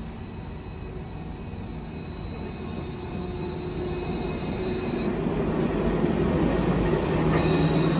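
Electric low-floor tram arriving at a platform: a rumble of wheels on rails with a steady electric hum, growing louder as it comes alongside.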